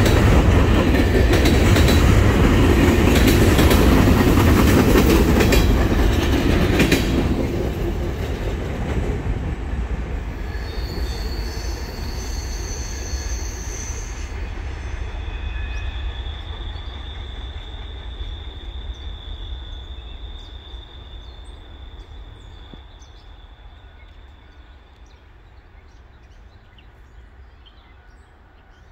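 Freight train of loaded trash gondola cars rolling past with heavy rumble and wheel clatter until the last car clears about seven seconds in. The train then fades as it recedes, with high-pitched wheel squeal from about ten seconds in that holds as one steady tone for roughly ten seconds as the cars round the curve.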